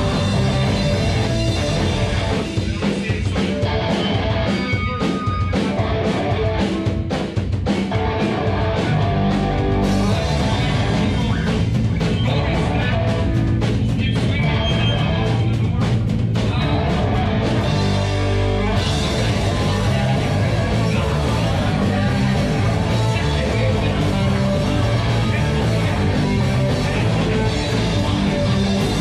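Live noise post-punk band playing loud, with distorted electric guitar, bass guitar and drum kit; the sound thickens about two-thirds of the way through.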